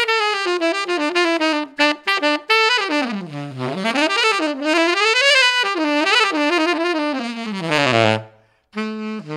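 Selmer Signature tenor saxophone played solo in fast runs sweeping up and down its range, trying out the key work. A short break comes near the end, followed by a lower held note.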